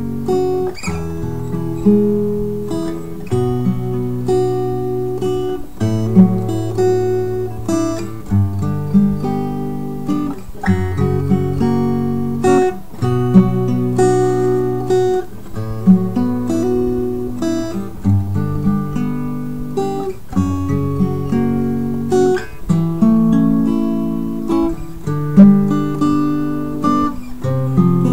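Instrumental acoustic guitar music, plucked and strummed chords changing about every second and a half.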